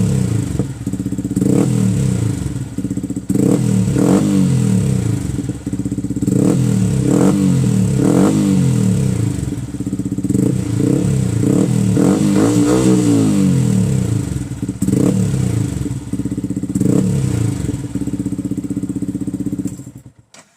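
Yamaha R15 motorcycle's single-cylinder engine, fitted with an aftermarket exhaust, being revved in repeated throttle blips. Each blip rises and falls in pitch before settling back toward idle, and the sound cuts off suddenly near the end.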